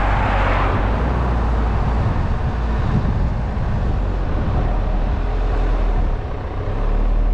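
Steady road noise and low hum of a car being driven, with a brief swell of tyre hiss as an oncoming Mercedes-Benz SUV passes close by right at the start.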